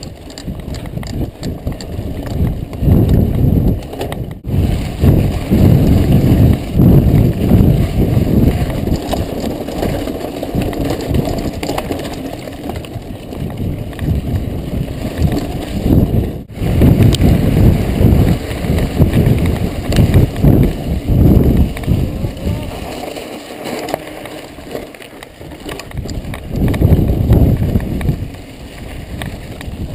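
Mountain bike ridden over a rough dirt and gravel track, with tyre and frame rattle and wind buffeting the handlebar camera's microphone in loud, uneven gusts. The sound drops out for an instant twice.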